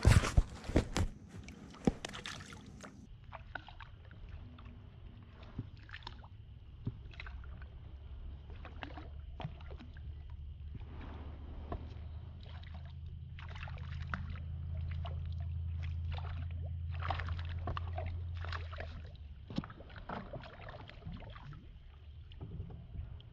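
Handling noise aboard a fishing kayak: sharp knocks and clatter of gear in the first few seconds, then scattered small clicks and water sounds. Around the middle a low steady hum swells up and fades away again.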